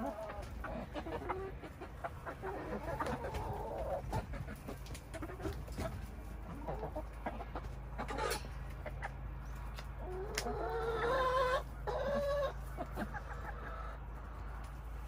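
A flock of domestic hens clucking, in short scattered calls, with a louder, drawn-out run of calls about ten to twelve seconds in. A steady low hum sits underneath.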